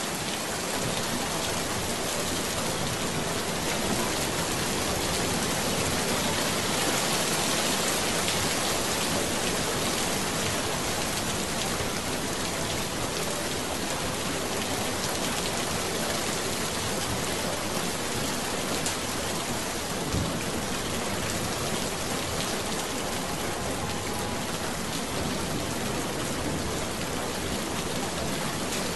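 Steady recorded rain sound, an even unbroken hiss of rainfall at a constant level, used as the cover track of a subliminal.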